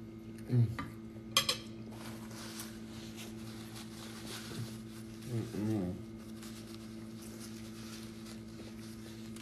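A metal spoon is set down on a ceramic plate with a sharp clink about a second and a half in, then a paper napkin rustles faintly as it is handled. Around five and a half seconds there is a short closed-mouth hum, and a steady low electrical hum runs underneath.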